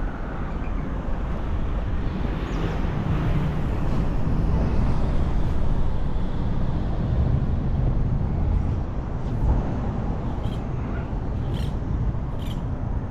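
Steady low outdoor rumble of wind and road traffic, with a few short, sharp high sounds in the last few seconds.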